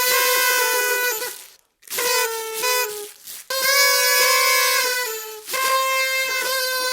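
Party trumpets blown in about four long blasts with short breaks between them; the second blast sags slightly in pitch as it ends.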